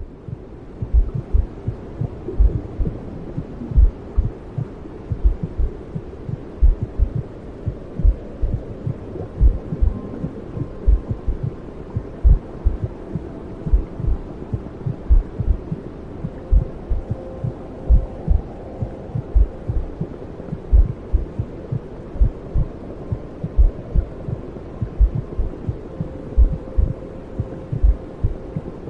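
Heartbeat sound for a baby sleep aid: low, steady thumps about once a second, laid over constant womb-like noise with a faint hum.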